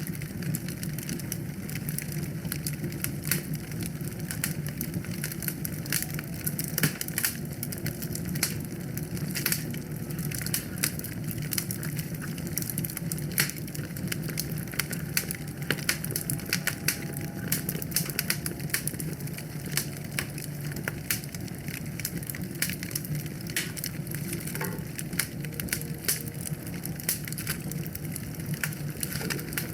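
Wood fire crackling in a fireplace: a constant scatter of sharp snaps and pops of burning logs over a steady low rumble of the flames.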